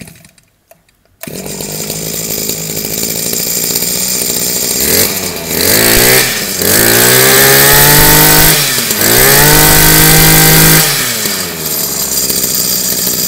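Small Makita brush cutter engine of about 20 cc pull-started: a short pull at the start, then it catches about a second in and idles. It is revved up three times, each rise held for a second or two, then drops back to idle near the end.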